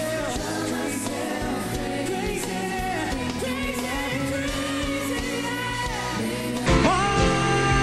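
A male pop vocalist singing live into a handheld microphone with band accompaniment and backing harmonies. About two-thirds of the way through, the audio cuts abruptly to a louder live performance.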